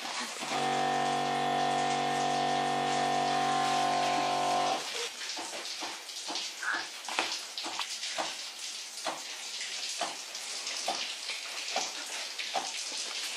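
A small electric pump hums steadily at a constant pitch as it forces water through a needle into raw chickens to plump them with water; it cuts off about five seconds in. After that, water splashes and gurgles irregularly in the plastic canister that feeds the pump.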